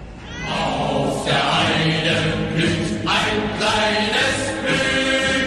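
Chant-like singing of long held notes, broken by short pauses between phrases.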